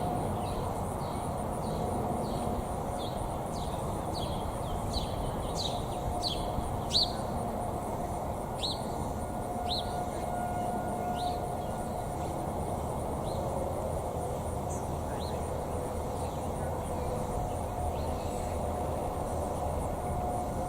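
Distant Federal Signal 2001 tornado sirens sounding a steady tone that swells and fades about every ten seconds as they rotate, over steady low background noise. A bird gives a run of quick downward chirps through the first fifteen seconds or so.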